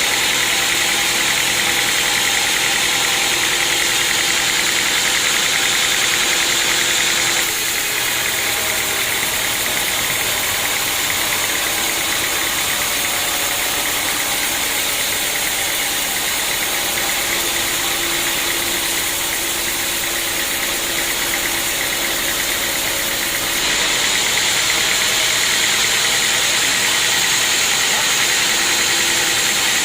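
Sawmill machinery running steadily: a saw and its motor making a continuous mechanical whine and hiss. The high hiss drops off about seven seconds in and returns near the end.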